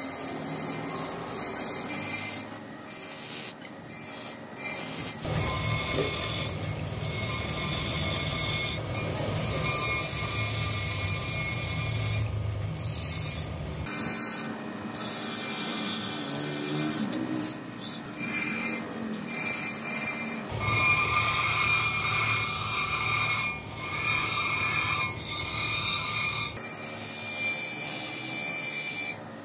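Steel knife blade being ground on a spinning motor-driven abrasive grinding wheel: a steady, high-pitched grinding screech over the motor's run. The sound changes abruptly several times, as the lower hum drops in and out.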